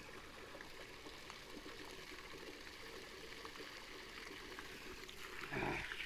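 Running water trickling steadily. A short louder sound comes near the end.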